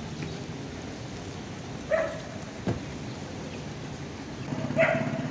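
A dog barking twice, once about two seconds in and once near the end, over a steady background hiss.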